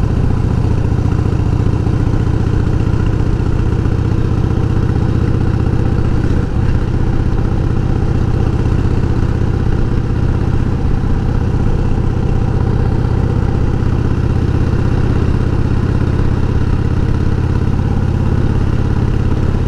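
1988 Harley-Davidson Heritage Softail's Evolution V-twin engine running steadily at cruising speed with a sidecar attached; the engine pitch holds even.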